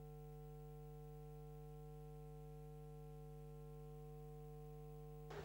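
Near silence with a steady electrical hum: a low drone with a few fainter, higher steady tones above it, unchanging throughout.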